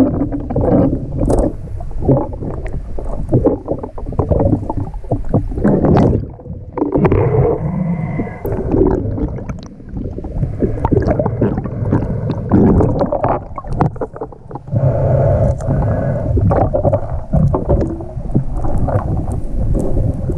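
Water sloshing and gurgling, with irregular splashes as a snorkeller moves through shallow water, heard muffled through a waterproof camera housing held at and below the surface.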